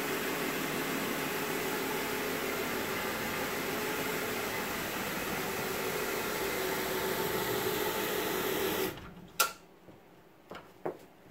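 Carpet brush agitation machine running steadily, its motor and brushes working a pre-applied cleaning solution into a heavily soiled carpet (the agitation stage before extraction). It cuts off about nine seconds in, followed by a sharp click and a couple of light knocks.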